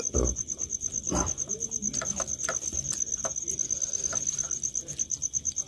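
A cricket chirping steadily, a high trill in even rapid pulses that never stops. Over it come short clicks and smacks of chewing, from people eating rice and egg curry with their hands.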